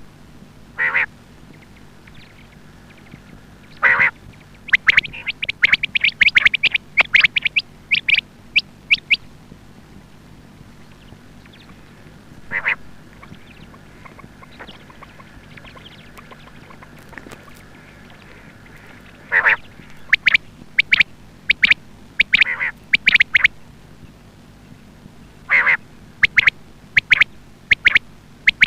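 Female quail calling: single short notes and quick runs of high, sharp calls in groups, with pauses of several seconds between groups.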